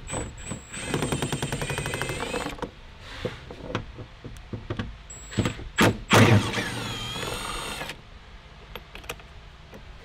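A cordless power tool turning a 10 mm socket on an extension runs in two bursts, backing out the bolts that hold the door handle. The first burst starts about a second in and lasts about a second and a half, its pitch rising. The second, louder one starts just after six seconds, its pitch rising and falling as the trigger is worked. A few sharp clicks come between the bursts.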